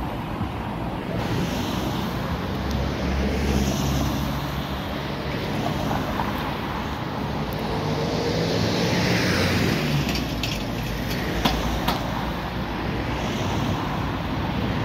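Road traffic: cars and vans driving past close by on a multi-lane city street, with steady tyre and engine noise. One vehicle swells loudest a little past the middle, followed by a few short sharp ticks.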